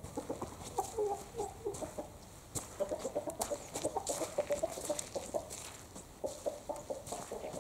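Chickens, a rooster with his hens, clucking: runs of short low clucks in quick succession, with light clicks and rustles in between.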